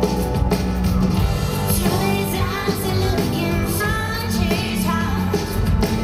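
Pop music played live through a concert sound system, with a woman singing over it from about two seconds in.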